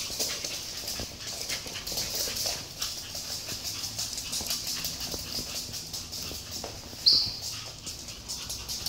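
Pug puppy's claws clicking rapidly on a wooden floor as it scampers in circles, over the swish of a cloth mop pushed across the floor. A brief high squeak about seven seconds in.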